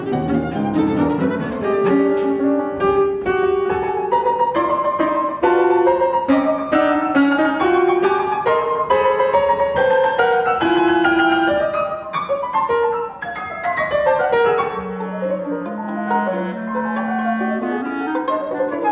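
Twelve-tone chamber music: violin and cello playing rapid accented runs over piano, then the piano alone in fast repeated triplet chords with sharply accented bass notes. Near the end clarinet and soft pizzicato violin come in over quiet piano.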